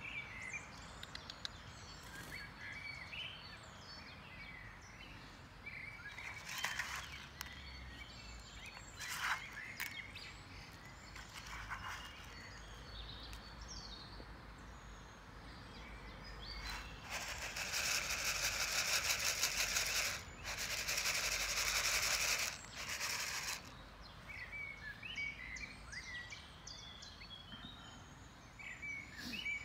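Birds chirping now and then over a steady outdoor background. Past the middle, a loud rushing noise runs for about five seconds, broken briefly once.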